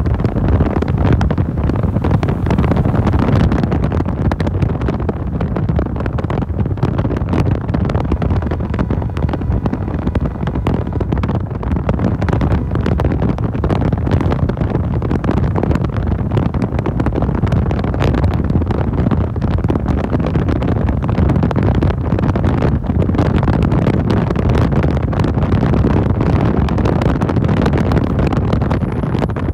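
Steady wind and road noise from a fast-moving vehicle, air buffeting the microphone in a constant low rush.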